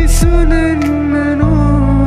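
Background music: a sustained melody over bass and percussion, with a deeper bass line coming in about one and a half seconds in.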